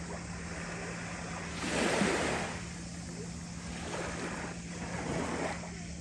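Small waves of a calm sea lapping onto a sand-and-pebble shore, three gentle washes with the biggest about two seconds in, over a faint steady low hum.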